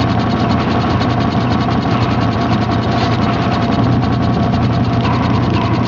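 Ratcheting gear-mechanism sound effect: a fast, even clicking clatter over a steady low hum.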